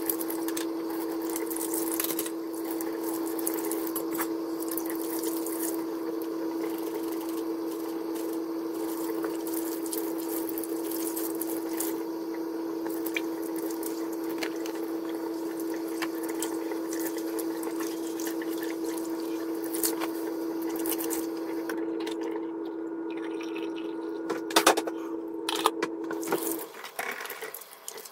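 Kitchen tap running into a sink while dishes and cutlery are washed. A steady hum sits under the water and cuts out about a second and a half before the end. Several sharp clinks and knocks of dishes come just before that.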